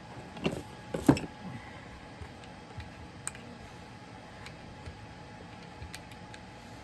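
Knocks and clicks of a cast-iron scraper plane's metal parts being handled and fitted together: two louder knocks about a second in, then scattered light ticks, over a faint steady hum.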